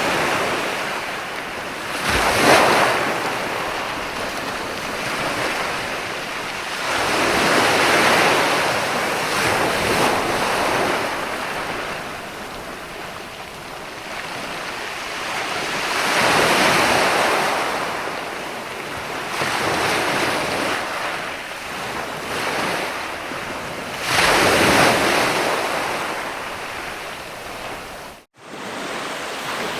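Ocean surf: waves wash in and break in slow swells every several seconds, each rising to a rush and fading back. There is a split-second dropout near the end.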